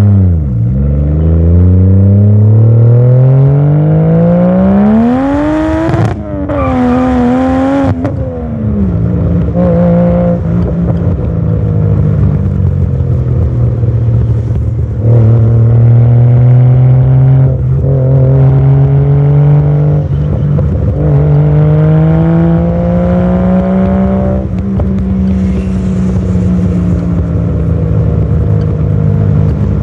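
Toyota 1JZ turbocharged straight-six in a Supra MK2, running through a new Magnaflow muffler and repaired exhaust line while driving. It pulls hard for the first several seconds with the pitch climbing, changes up, then runs on with the revs rising and falling between further gear changes. Short spells of hiss come in around six seconds and again near the end.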